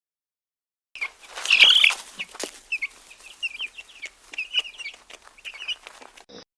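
Domestic chickens calling: a quick run of short, high chirping calls with some rustling. It starts about a second in, is loudest early, and cuts off suddenly near the end.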